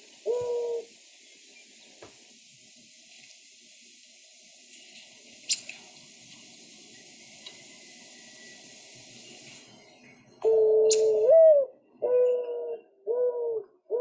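Mourning dove song, a soft, sad cooing. A single coo ends a song just after the start. After a pause of about ten seconds a new song begins: a long note that slides up and drops, then three shorter, even coos.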